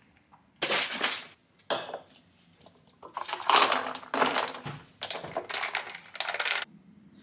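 Clinking and rustling of objects being handled, in three bursts, the last and longest lasting about three and a half seconds.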